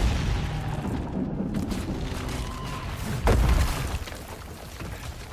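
Explosion sound effects from a TV drama's soundtrack, dragon fire on a city: a steady deep rumbling, then a sudden loud boom a little over three seconds in that dies away.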